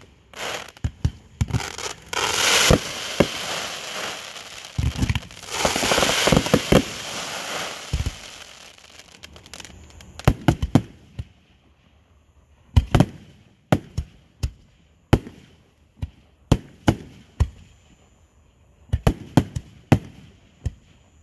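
Fireworks going off: many sharp bangs, with two longer crackling bursts in the first half and then sparser, separate bangs.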